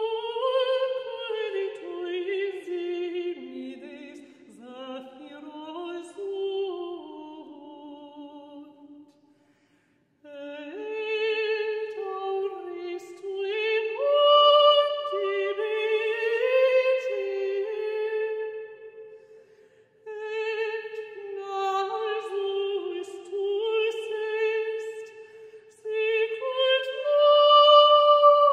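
Operatic singing by a high voice, long held notes with vibrato, in phrases broken by two short pauses.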